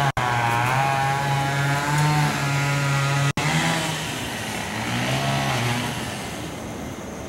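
A chainsaw engine running, its pitch wavering up and down; it fades out about four seconds in, leaving a steady hiss. The sound drops out for an instant twice.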